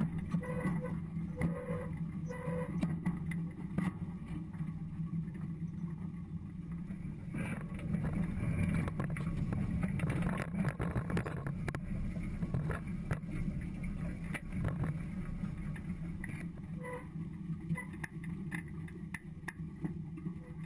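Flexi-coil 5000 air drill with Agmaster seed boots working through stubble: a steady low drone under constant rattling and scraping from the shanks and openers in the soil.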